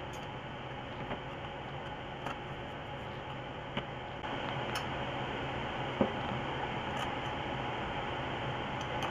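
Steady background hum and hiss that gets a little louder about four seconds in, with a few light clicks and taps as a drill and metal muffler parts are set down and picked up on the bench.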